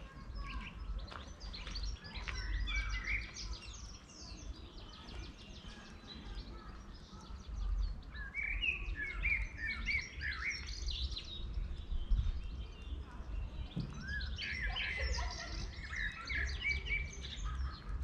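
Songbirds singing: three fuller song phrases, each two to three seconds long, at about two, eight and fifteen seconds in, with quieter chirps and trills between them over a low rumble.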